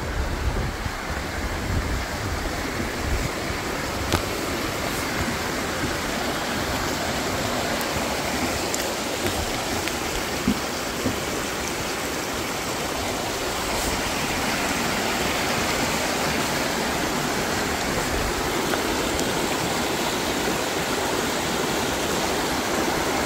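Mountain creek rushing over rocks: a steady hiss of running water that grows a little louder about halfway through. A few short knocks stand out above it.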